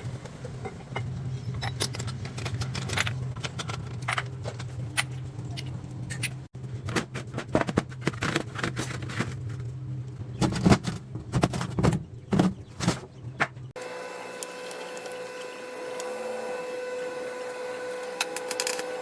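Metal parts and tools clinking, knocking and scraping over a steady low machine hum. Then, after an abrupt cut, a workshop machine runs with a steady whine of several held tones.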